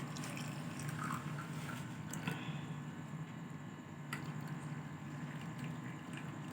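Hot herbal decoction poured unstrained from a pot into cups: a faint trickle with a few light clinks, over a steady low hum.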